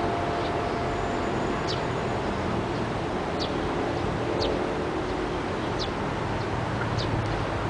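The last of the clock tower's commemorative bell tone dies away in the first two seconds, over a steady background hum. Short, high bird chirps that fall in pitch sound about once a second.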